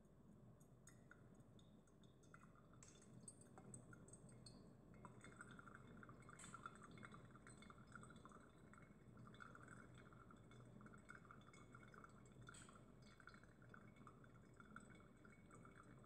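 Filter coffee brewing in a paper filter: faint, steady trickling and dripping, with small ticks of bubbles popping in the wet grounds.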